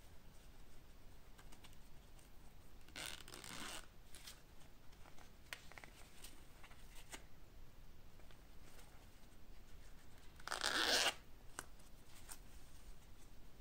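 Zipper on a leather wallet's zipped compartment being pulled: two short zips about seven seconds apart, the second louder, with light handling rustle and small clicks in between.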